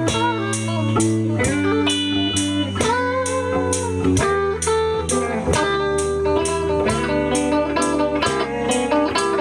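Live electric blues guitar playing an instrumental passage: lead notes bent up and down over a steady low bass line, with an even beat about twice a second.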